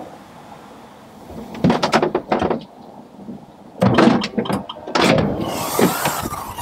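Three bursts of clunks and rattles over a few seconds as a Land Rover Freelander 2 is unlocked and a door is opened and handled.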